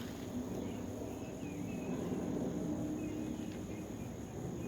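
Insects trilling in one steady, unbroken high tone, over a low background rumble, with a few faint short chirps.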